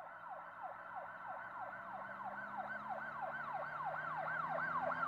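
Emergency-vehicle siren in a fast yelp pattern: quick falling sweeps repeating about three times a second, growing steadily louder.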